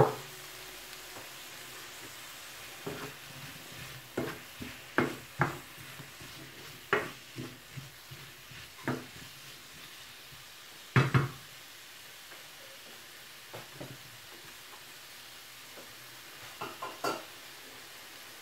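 Sliced bell peppers and onions sizzling in a frying pan, stirred with a wooden spatula that knocks and scrapes against the pan in scattered strokes, loudest about 11 seconds in and again near the end.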